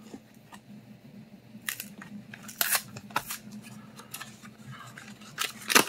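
A foil Pokémon booster pack being opened: several short, sharp crinkles and rips of the wrapper, the loudest near the end.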